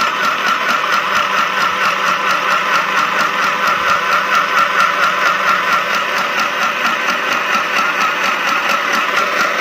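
Mini portable electric sewing machine running on its low-speed setting: a steady motor whine with a rapid, even clatter of needle strokes, stopping abruptly.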